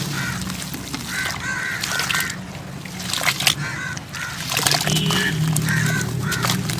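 Dry sand-cement or dirt clumps crumbling in crisp, irregular crackles. Short repeated bird calls and a steady low hum run behind them.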